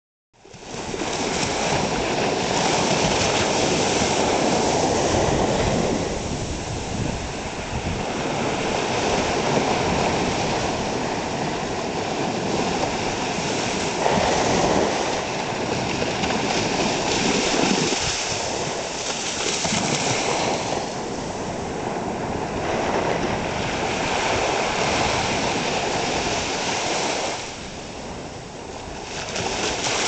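Ocean surf breaking and washing up a sandy beach: a continuous rush of water that swells with each wave and eases off briefly near the end.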